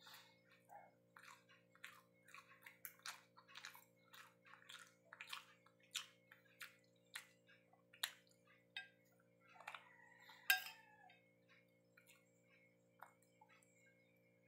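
Faint eating sounds: a spoon and fork clicking and scraping on a plate, mixed with close-up chewing of rice and tocino. There are many small ticks, with one louder clink about ten and a half seconds in, over a faint steady hum.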